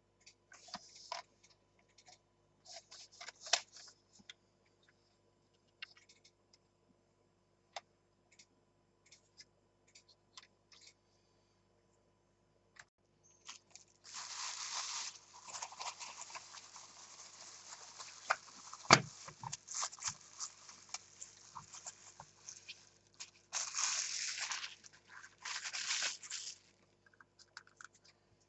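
Packaging being handled and torn open: scattered light clicks and rustles at first, then, from about halfway, a long stretch of crinkling and tearing. A single sharp knock comes in the middle of it, and two short louder bursts of crinkling come near the end.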